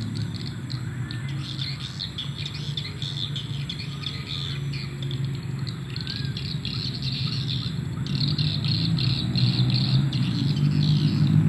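Dense, rapid high chirping of insects and birds at dusk, with a few short rising bird calls, over a low steady hum; the chirping grows louder in the second half.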